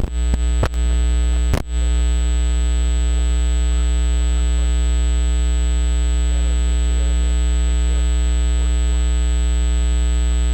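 Loud, steady electrical mains hum with a buzzy stack of overtones and a thin high whine, broken by three or four brief crackles and dropouts in the first two seconds, like a loose connection.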